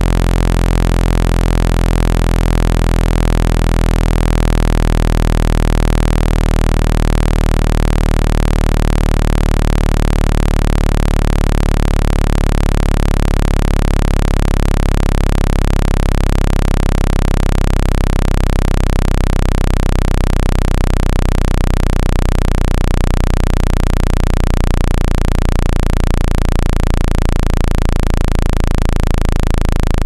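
Loud synthetic water-eject tone for clearing water from a phone's charging port: a cluster of steady low hums under a constant hiss, meant to vibrate the water out. From about two-thirds of the way in, the lowest hums take on a fast, fluttering beat.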